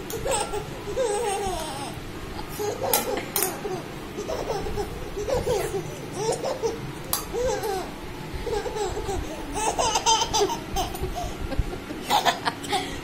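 A toddler laughing again and again in short peals, with a few sharp clicks in between.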